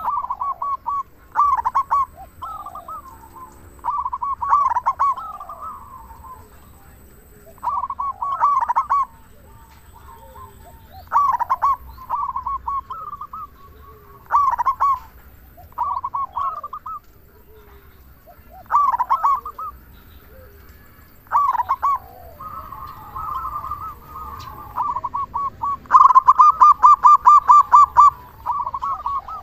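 Zebra dove (perkutut) cooing: short, rolling cooing phrases repeated every few seconds, with a longer, faster run of rapid notes near the end.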